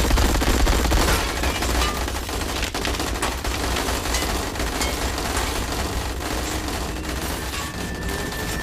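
A sustained barrage of rapid gunfire, with many shots overlapping in a dense, continuous crackle. It begins abruptly and eases off slightly in loudness toward the end.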